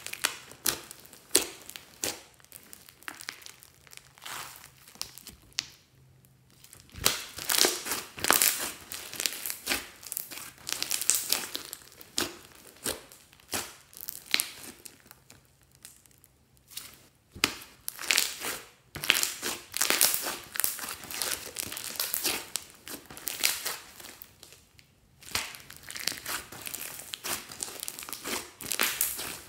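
Hands kneading and squeezing a large lump of thick slime with small beads mixed in: sticky, crackly squishes and pops that come in irregular bursts, with a few brief pauses.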